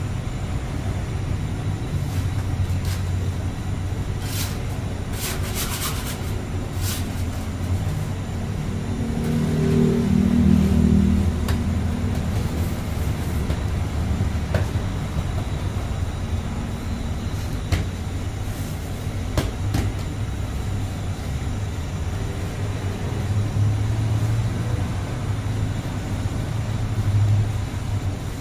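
Steady low machine rumble of working bakery equipment, with scattered sharp clicks and knocks. The rumble swells briefly about ten seconds in.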